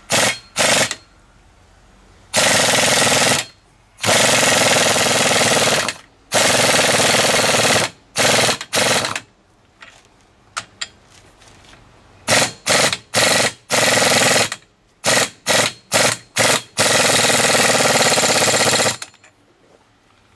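Ingersoll Rand Titanium air impact wrench hammering the axle nut tight on a new front wheel hub bearing, in repeated bursts: several short blips and a few longer runs of one to two seconds each.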